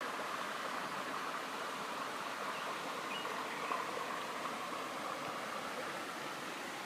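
Mountain valley stream flowing steadily.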